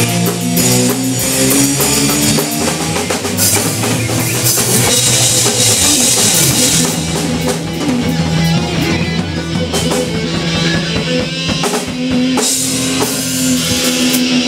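Small rock band playing live: drum kit with cymbal wash, electric guitars and bass guitar through amplifiers. The cymbals crash loudest about five seconds in and again near the end.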